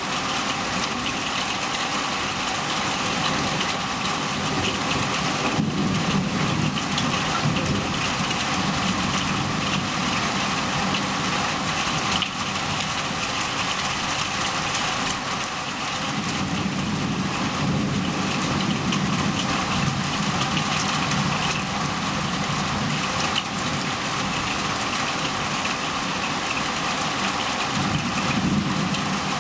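Heavy rain falling steadily in a thunderstorm, a constant hiss. Under it a low rumble swells and fades a few times: about six seconds in, for several seconds from about sixteen seconds, and again near the end.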